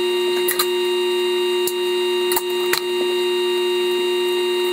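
Märklin model railway track sections and track insulators being clicked into place by hand: several sharp plastic clicks, some in quick pairs, over a loud steady hum.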